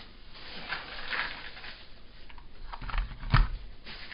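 Scattered rustling and light clicking of objects being handled, with one louder thump about three and a half seconds in as something is set down.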